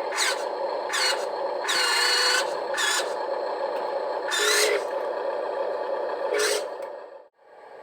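Huina RC construction model's small electric gear motors whining steadily, with about six short louder motor bursts about a second apart as the machine works. The sound cuts off suddenly near the end.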